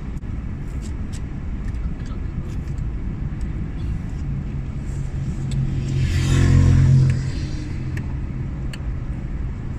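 Car engine running with a steady low rumble, swelling louder for a second or two about six seconds in.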